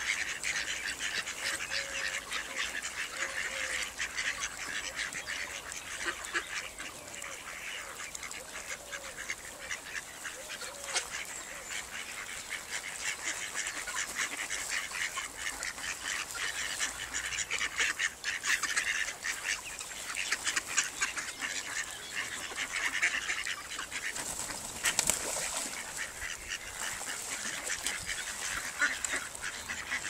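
Mallards and their ducklings calling: a continuous chatter of quick high peeps, with quacks here and there.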